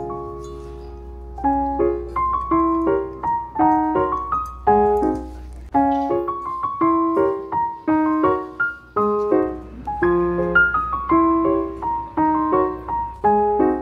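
Background piano music: a light melody of struck notes in a steady run, coming in about a second and a half in after a fading held chord.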